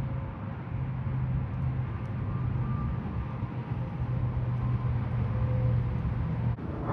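A vehicle engine running with a steady low hum under a constant wash of noise.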